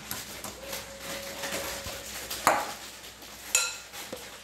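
Utensils scraping and clinking against a glass mixing bowl while zucchini noodles are tossed in avocado sauce, with two sharper knocks that ring briefly, about two and a half and three and a half seconds in.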